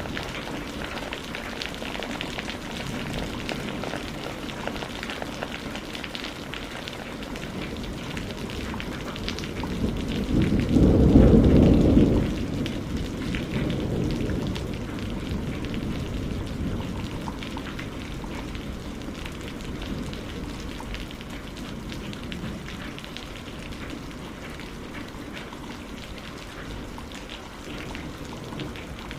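Steady rain with a low roll of thunder about a third of the way in.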